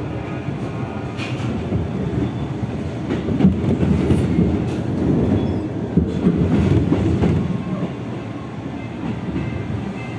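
Moving commuter electric train heard from inside the carriage: a steady rumble of wheels on rail, with scattered clicks as the wheels run over rail joints and switches.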